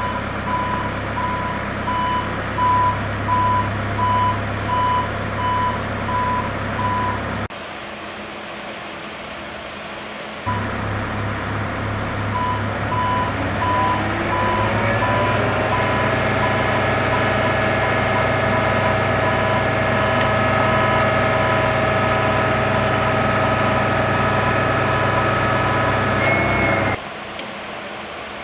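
Nagano Kogyo NUZ090D articulated-boom aerial work platform running, its warning beeper sounding a steady, evenly spaced beep over a low machine hum while the boom is worked. About halfway through, a rising whine climbs and then holds steady as the machine comes under hydraulic load; the sound drops off suddenly near the end.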